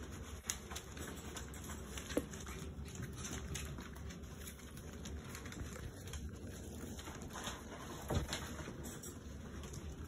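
Schnauzer puppies playing, with small claws and paws pattering and clicking on the floor. Two brief squeaks come about two seconds in and again about eight seconds in.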